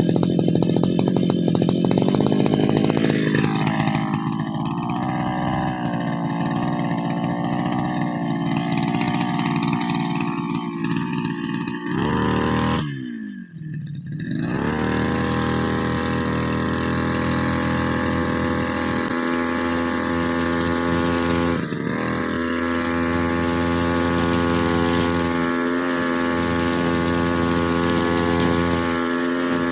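Brushcutter engine running. About halfway through its speed drops sharply and it nearly dies, then it picks up again and settles into a steady run.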